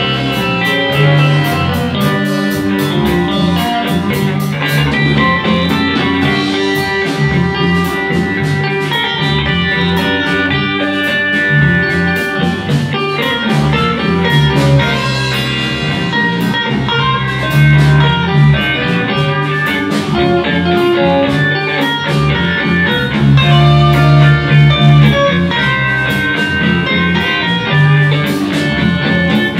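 A live blues band plays an instrumental passage with no vocals: an electric guitar plays lead lines with long held notes over bass and a drum kit.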